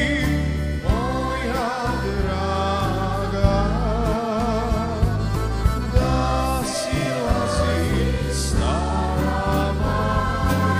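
Live performance of a Bosnian sevdalinka: voices and a choir singing with wavering vibrato over a band of accordion, keyboard and drums, with a steady bass line and regular percussion ticks.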